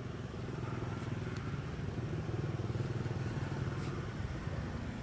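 An engine running steadily with an even low drone, swelling slightly in the middle.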